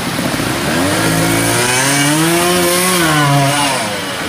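Trials motorcycle engine revving hard under load, its pitch climbing over about two seconds and then dropping away as the bike goes up a steep bank.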